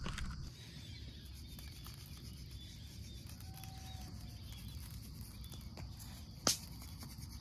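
Steady high-pitched drone of night insects over a low background rumble, with one sharp snap about six and a half seconds in.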